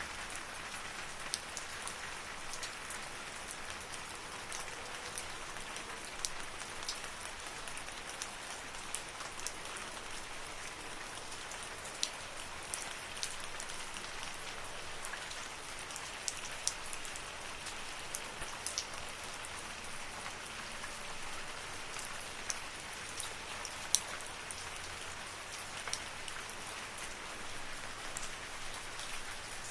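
Steady rain falling in a forest: an even hiss of rainfall with scattered sharp drips and drops landing close by.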